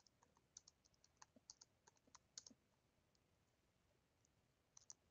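Faint computer keyboard typing: a quick run of keystrokes over the first two and a half seconds, a pause, then a few more keystrokes near the end.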